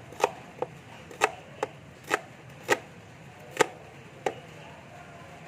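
Large kitchen knife chopping a red onion on a board: eight sharp chops at an uneven pace, stopping a little after four seconds in.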